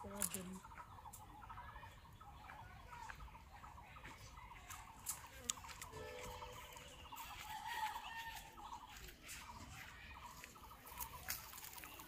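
Faint village outdoor ambience: chickens clucking and other birds calling in short broken calls, with a few sharp clicks scattered through.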